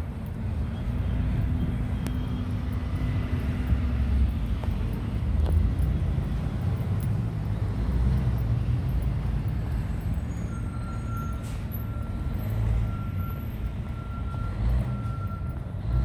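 Outdoor street ambience during a snowfall: a steady low rumble of wind on the microphone and distant traffic, with a faint high whine coming and going from about ten seconds in.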